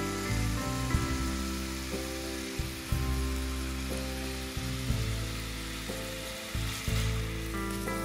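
Food sizzling as it fries in a pan, with a few sharp knocks, over background music of held notes.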